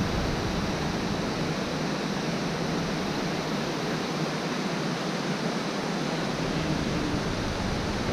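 Shallow stream running down a narrow, water-carved rock gorge: a steady, even rush of water.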